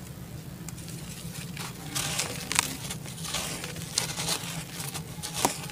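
A dry block of red dirt crumbled by hand over a basin of muddy water: gritty crunching and crackling, with dry pieces pattering into the water. It starts about two seconds in, after a quieter stretch of slow wet handling.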